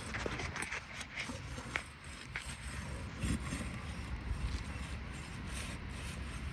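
Asphalt roof shingles being scraped and handled, with a few light knocks, over a steady low rumble.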